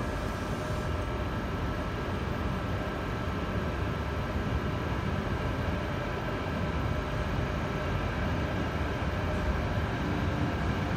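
Electric locomotive of a standing ICRm intercity train running its cooling fans and electrics: a steady hum with several thin steady whining tones over it, growing slightly louder toward the end.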